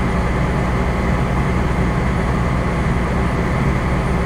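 A fire engine's diesel engine running steadily, a low even hum heard from inside the cab.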